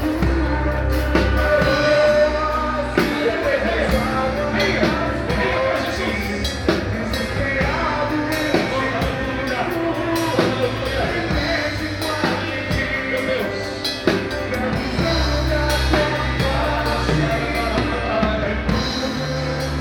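Live worship band playing a song with drum kit and bass, with singing.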